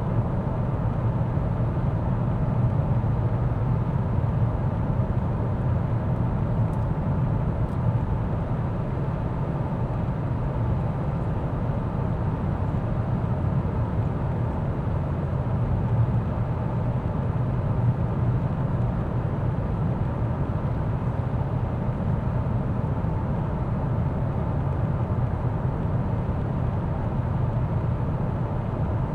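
Mercedes-Benz S 450d L, with a 3.0-litre inline-six turbo diesel, driving at a steady pace: a low, even rumble of road, tyre and engine noise that stays unchanged throughout.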